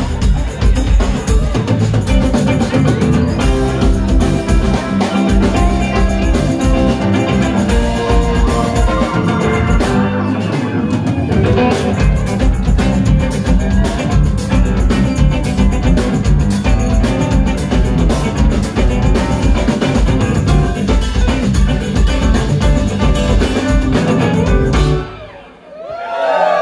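Live funk band playing an instrumental: drum kit, electric bass, hollow-body electric guitar and organ-toned stage keyboard. Near the end the band stops and the sound drops away for about a second before rising again.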